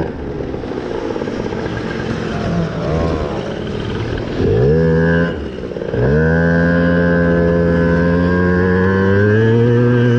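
Two-stroke 50cc Yamaha Jog scooter engine revving: a couple of quick rises and falls in the first half, then held steady at high revs, the pitch climbing a little near the end.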